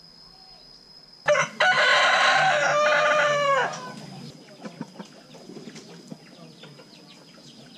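A rooster crowing once: a loud call of about two and a half seconds starting just over a second in, its pitch dropping at the end.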